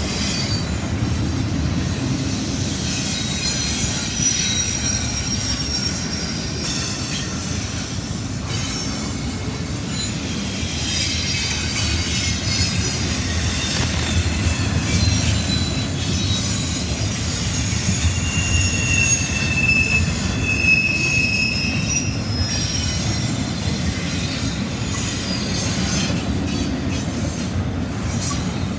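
Double-stack intermodal freight train rolling past: a steady rumble of steel wheels on rail, with high-pitched wheel squeal coming and going, clearest about two-thirds of the way through.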